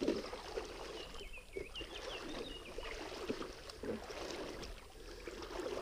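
Wading steps through a shallow stream: water sloshing and splashing softly around the legs.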